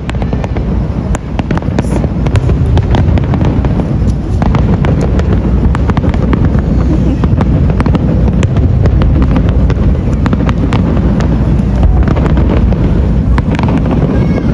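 Aerial firework shells bursting in quick succession: many sharp cracks and crackles over a continuous deep rumble of explosions.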